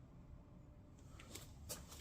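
Near silence: room tone, with two or three faint clicks in the second half.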